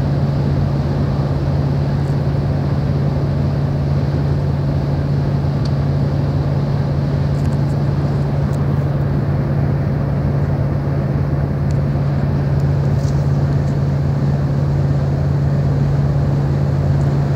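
Steady engine and road drone heard from inside a vehicle cabin at highway speed, with a constant low hum under it.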